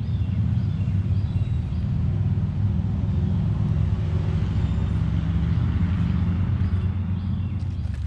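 Eastern chipmunk eating corn kernels right beside the microphone: a close, low crunching and rustling that drops away near the end as the chipmunk leaves. Faint bird calls sound above it.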